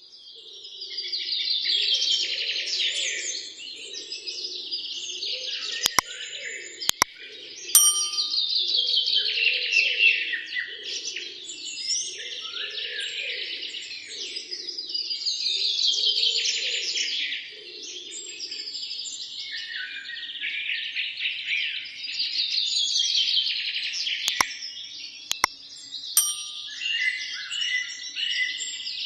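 A dense chorus of birds chirping and singing over one another, swelling and fading every six or seven seconds, over a lower pulsing sound that stops about two-thirds of the way through. A few sharp, ringing, ding-like clicks stand out, in two groups of three.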